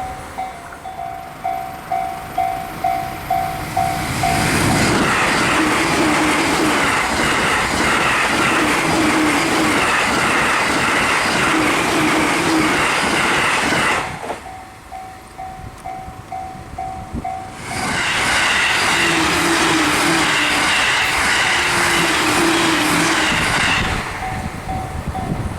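Japanese level-crossing warning bell ringing about twice a second, then a Joban Line electric train passing the crossing at high speed with a loud rush of wheels on rail. The bell is heard again for a few seconds before a second train rushes past, and it rings again near the end.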